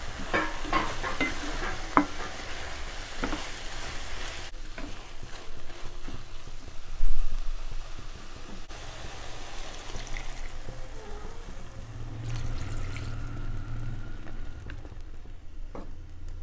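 Wooden spatula stirring soya chunks through masala in a non-stick pan, with scraping and clicking strokes over a steady sizzle. A single loud thud about seven seconds in.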